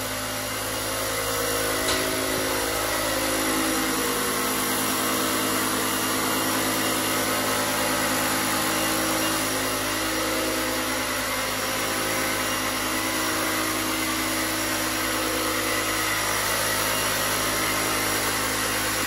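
Ryobi ONE+ cordless fogger running steadily as it sprays a fine mist of disinfectant. The motor noise is constant, with an even rush over a steady hum, and it cuts off abruptly as it is switched off at the very end.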